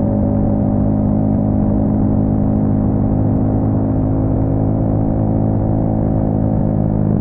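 Yamaha XSR 155's single-cylinder engine running through an aftermarket full exhaust, held at a steady, unchanging engine speed.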